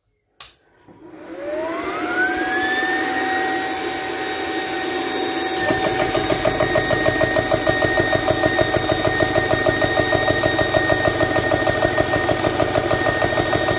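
BSA 300 bar portable high-pressure air compressor switched on with a click. Its motor spins up with a rising whine that then holds steady. About five seconds in, a fast regular pulsing of the pump sets in as it runs under load, building pressure.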